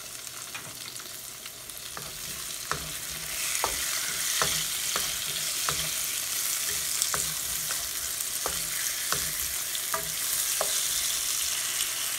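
Tomatoes frying with garlic and onion in hot olive oil in a frying pan: a steady sizzle that gets louder about three seconds in. Through it, a utensil clicks and scrapes against the pan about once or twice a second as the food is stirred.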